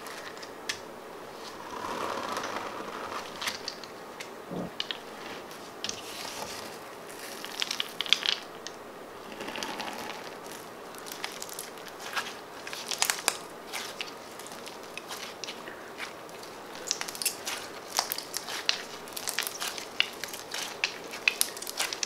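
Clear jelly slime packed with uncooked rice grains, kneaded and squeezed by hand: crunching with sharp crackles. The crackles come more often and more sharply in the last few seconds.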